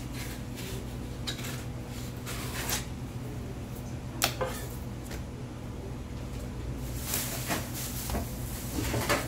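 Single-bevel fish knife scraping along flounder skin on a plastic cutting board as the fillet is skinned, with short scrapes and a sharp knock just after four seconds in and several more handling knocks near the end. A steady low hum runs underneath.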